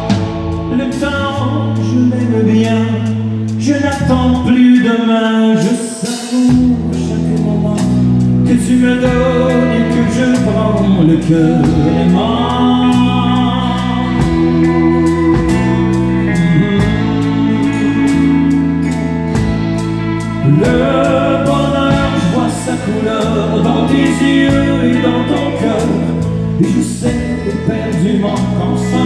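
Man singing a French-language country love song live into a microphone, accompanied by acoustic guitar, with sustained bass notes and a steady beat under the voice.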